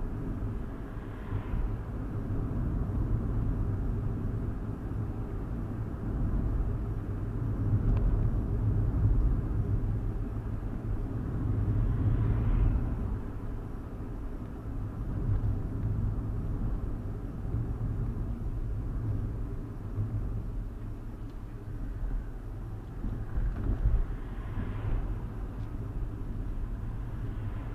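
A 2015 Hyundai i20 driving, heard from the dashcam inside the cabin: a steady low rumble of road and engine noise. It swells briefly with a rush of hiss three times, about a second in, near the middle and near the end.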